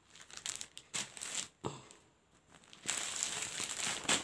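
Cotton saree cloth rustling and crinkling as it is handled, unfolded and turned over by hand. There are a few short rustles, then a longer, louder stretch of handling near the end.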